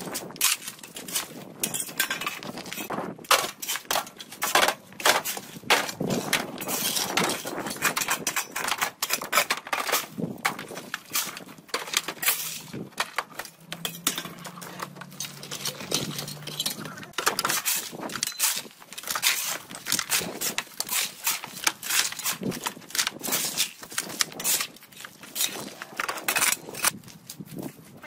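Hand cleanup work: rakes scraping brush and dirt over the ground, and broken bricks clinking and clattering as rubble is tossed into a metal wheelbarrow. The knocks and scrapes follow one another densely and unevenly.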